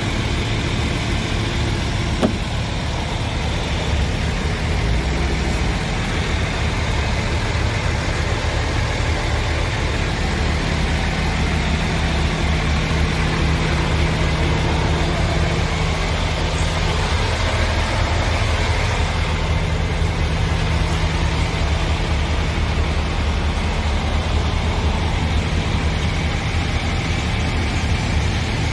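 Scania R tractor unit's diesel engine idling steadily, a constant low hum. A single brief click about two seconds in.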